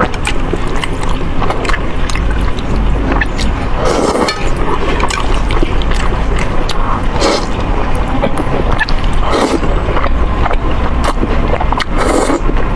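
Close-miked eating of spicy fire-chicken noodles: wet chewing and mouth clicks, with several louder noodle slurps.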